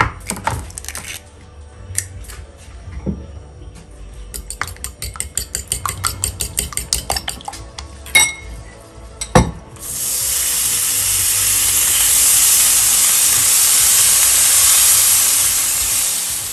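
A fork beating an egg in a ceramic bowl, clinking in quick, even strokes, then two sharp knocks. From about ten seconds in, bacon strips sizzle loudly in a hot frying pan.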